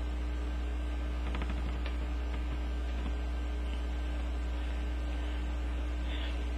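Steady low electrical hum with a fainter steady tone above it, and a few faint ticks about a second and a half in.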